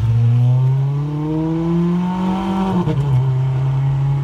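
Ferrari F430's V8 accelerating away, its note climbing steadily, then dropping for an upshift about three seconds in and carrying on at a steady pitch.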